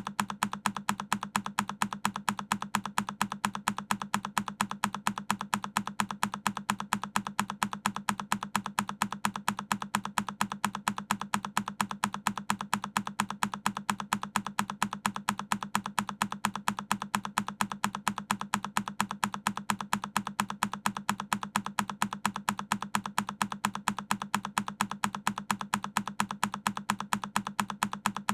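A single key on a Keychron K10 mechanical keyboard pressed over and over, a sharp click repeating evenly several times a second.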